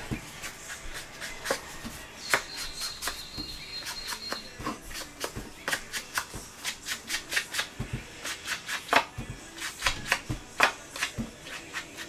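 Ink-blending sponge dabbed on a stamp ink pad and onto the edges of cardstock: quick, irregular soft taps and rubs, several a second.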